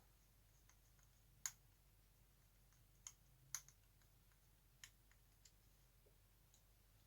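Sparse, faint clicks and taps of small plastic model-kit parts and hand tools being handled, about six in all, the sharpest about a second and a half in.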